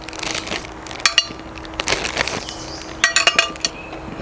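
Metal kitchen tongs clinking and tapping while raw chicken drumsticks are moved into a plastic bag in a glass bowl, with the bag rustling. A quick run of clinks comes about three seconds in.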